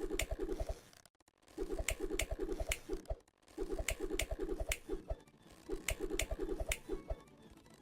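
Electronic music: a beat of sharp clicks and quick low thuds under short repeated notes, in phrases of about a second that break off briefly twice.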